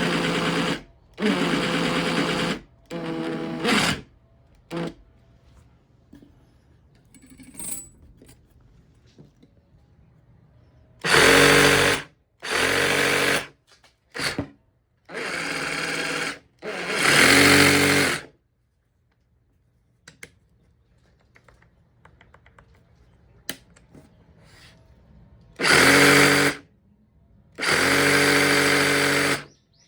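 Makita XRJ04 cordless reciprocating saw run with no load in a series of short trigger pulls, each about a second of motor whine with the blade clamp stroking. The pulls come in three clusters separated by pauses, and one pull is at a lower, quieter speed.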